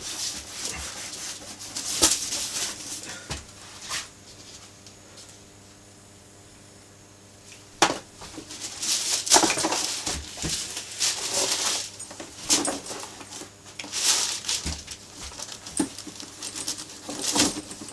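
Latex-gloved hands rubbing pigmented renovating cream into the dry, scuffed leather of an old briefcase. The rubbing comes in strokes, with a quiet pause in the middle and a sharp knock about eight seconds in.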